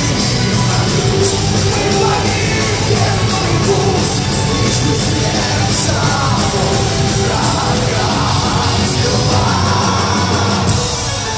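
Heavy metal band playing live, with distorted guitars and bass under drums striking the cymbals several times a second and a sung vocal line over the top. The full band drops out near the end.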